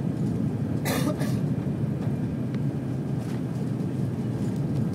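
Steady low rumble of an airliner's cabin on final approach: engine and airflow noise heard from inside the passenger cabin, with a brief rustling click about a second in.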